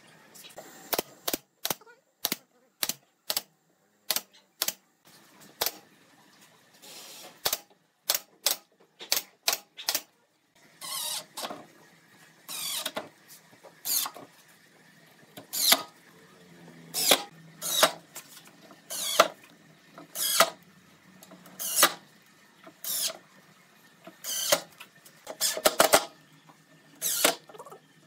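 Sharp separate clicks for about the first ten seconds, then a Makita 18V cordless impact driver running in short bursts about once a second, driving screws into a pine rail.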